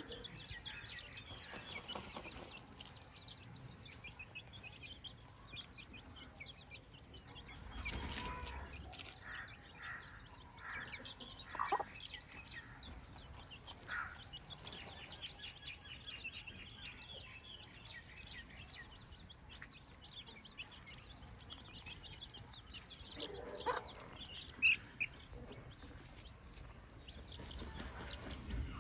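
Chickens clucking on a farm, with many short high chirps throughout and a few louder calls now and then.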